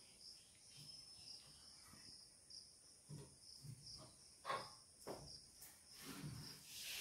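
Faint, high-pitched chirping of insects, most likely crickets, pulsing on steadily, with a few soft knocks and handling sounds in the second half.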